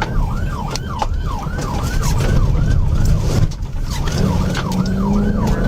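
Police car siren on its fast yelp setting, wailing up and down about three times a second over the engine and road noise of a cruiser in pursuit. The siren drops out briefly a little past halfway, then resumes.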